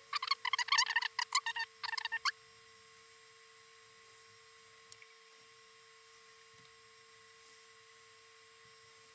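Isopropyl-dampened cotton bud squeaking as it is rubbed back and forth over a surface: a quick run of high squeaks for about the first two seconds. After that there is only a faint steady whine and room tone.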